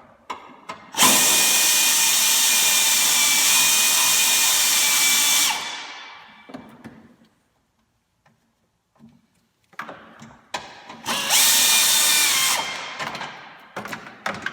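A handheld power driver spinning out the bolts that hold the radiator to the upper core support, in two steady whirring runs: a long one of about four and a half seconds near the start, and a short one of about a second and a half near the end. Small knocks and handling clatter come between the runs.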